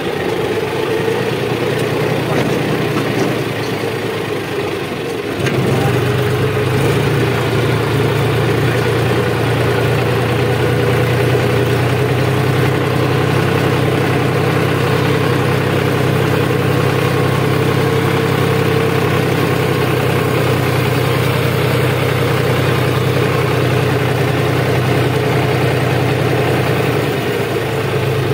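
John Deere 5405 4WD tractor's three-cylinder diesel engine running as the tractor drives along, heard from the driver's seat; the engine gets louder about five seconds in and then runs steadily.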